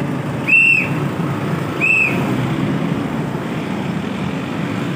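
Road traffic noise from motorbikes and cars on the street below, steady throughout, with two short high whistle-like tones about a second and a half apart near the start.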